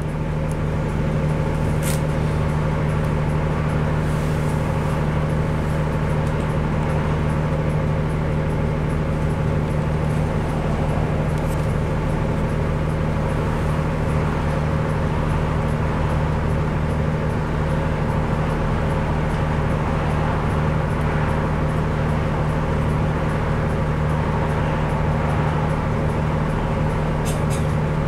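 Diesel engine of a DAF SB120 Wright Cadet single-deck bus idling steadily while the bus stands still, heard from inside the passenger saloon as an even low drone.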